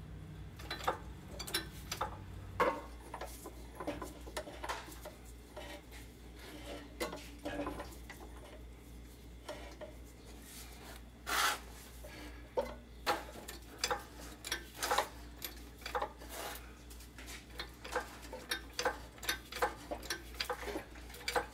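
Irregular metallic clicks and light knocks as a transmission jack is worked to raise an automatic transmission toward the engine, with one longer, louder scrape about eleven seconds in. A low steady hum runs underneath.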